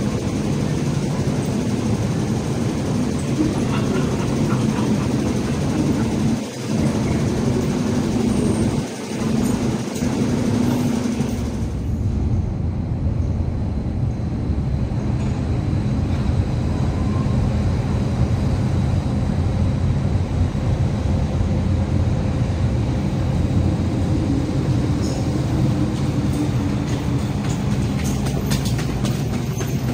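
MTR M-train electric multiple unit running along an underground platform behind glass screen doors: a steady low rumble with a motor hum. It changes abruptly about twelve seconds in, and the rumble carries on until the train rolls in again near the end with a few wheel clicks.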